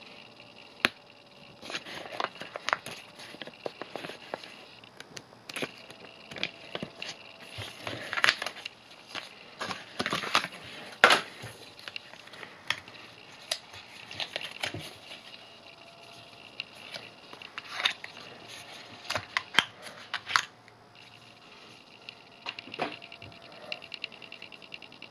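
Paper and card packaging handled by hand: irregular rustling, crinkling and sharp clicks as an instruction booklet and a card box insert are worked and a small white plastic adapter is taken out. The busiest, loudest handling comes around the middle.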